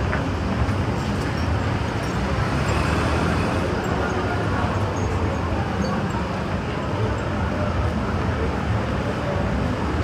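Steady road traffic noise from vehicles passing along a busy street.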